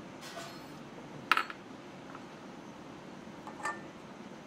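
Two light clinks of a glass bowl and spatula, a sharp one about a second in and a softer one near the end, as cream cheese is scraped out into a stand mixer's steel bowl.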